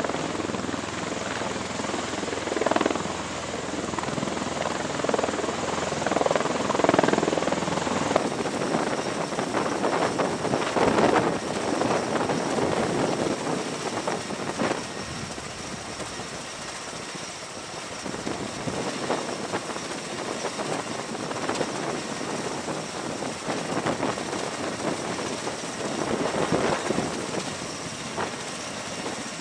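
V-22 Osprey tiltrotor running, its two proprotors and engines giving a steady roar that swells and fades as it hovers low over the deck.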